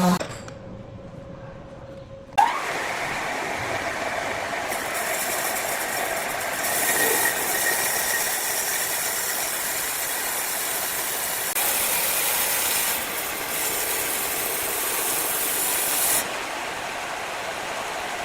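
Motor-driven wood-cutting saw running steadily, after a quieter opening stretch that breaks off with a sudden loud start about two seconds in; its sound shifts abruptly a few times.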